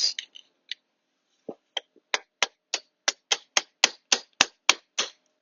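About a dozen quick, light tool taps on a 1AR-FE valve spring retainer, about three a second, starting a second and a half in; they knock the retainer down to free the valve keepers.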